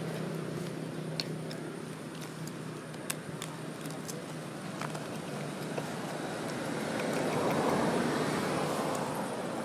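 Steady outdoor background noise, a low rumble and hiss like distant road traffic, swelling about seven to eight seconds in, with a few faint sharp clicks.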